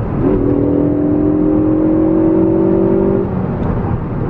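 2016 Ford Focus ST's turbocharged 2.0-litre four-cylinder accelerating, heard from inside the cabin: its note climbs slowly, breaks off a little after three seconds for a gear change, and comes back at a lower pitch near the end.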